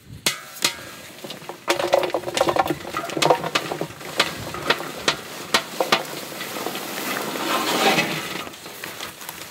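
Fresh okra pods tumbling from a tray into a large metal basin. The pods rustle and knock against each other and the metal in many quick clicks, and the pour swells into a denser rush near the end.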